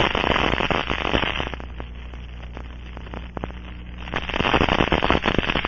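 Dense crackling of tiny bubbles of liquid leak amplifier collapsing over a small leak, heard through an Ultraprobe ultrasonic detector: many fast pops over hiss. This is the sign of a leak site. The crackle thins out about a second and a half in and thickens again from about four seconds in.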